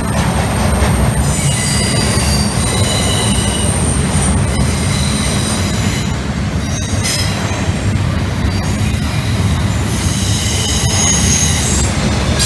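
Double-stack intermodal container train rolling past close by: a steady rumble of the wagons with high wheel squeal coming and going, and a few sharp clicks.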